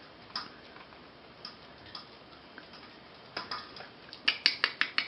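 Puppies making sharp clicks and taps: a few scattered at first, then quickening to several a second over the last second or so.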